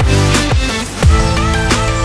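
Electronic background music with a beat of deep kick drums that drop in pitch, over held synth notes.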